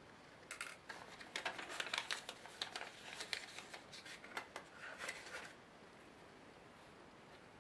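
A quick run of small, crisp paper rustles and light clicks lasting about five seconds, then stopping: a slip of paper being handled and tucked into a small plastic parts cup.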